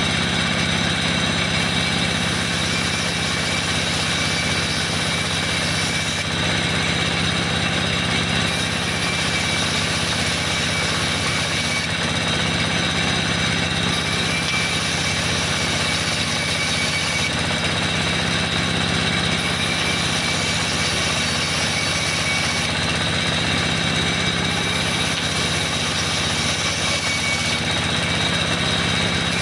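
Band sawmill running steadily while ripping boards: a low motor hum under a steady high whine from the blade, which eases slightly every few seconds.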